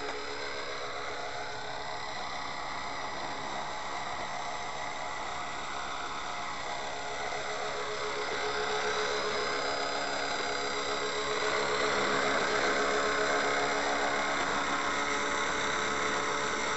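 RC scale JetRanger model helicopter's motor and rotors whining steadily in flight, the pitch sweeping up and down in slow curves as it manoeuvres. It grows louder about twelve seconds in.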